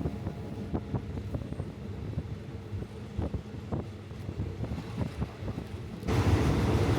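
Low running rumble of a moving passenger train with scattered knocks and clicks. About six seconds in, a much louder rushing noise, like wind on the microphone, suddenly takes over.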